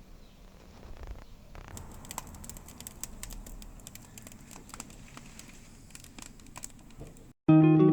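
Irregular light crackling and clicking over a low background, stopping short just before guitar music starts at the very end.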